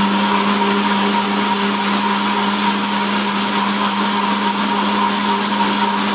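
Countertop blender running steadily at one speed, its motor humming at an even pitch as the blades churn a jar of water.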